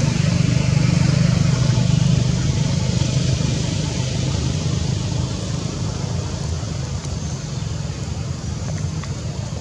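Steady low rumble of a running motor, easing off slightly over the seconds.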